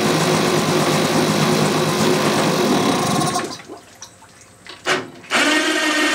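1992 Johnson 3.3 hp two-stroke outboard running steadily in a test tank. The propeller is not pushing any water, which the owner puts down to a spun prop hub. About three and a half seconds in the sound falls away for around two seconds, with one short loud burst, then the running comes back abruptly.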